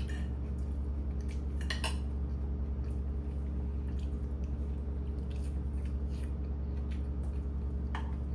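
A few clinks of kitchen utensils against dishes: one at the start, one about two seconds in and one near the end, over a steady low hum.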